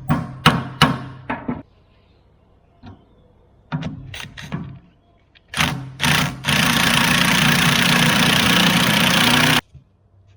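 Quick sharp knocks about half a second apart over a low engine hum, a few clicks, then the Takeuchi TL8 skid steer running loud and steady for about three seconds before the sound cuts off suddenly.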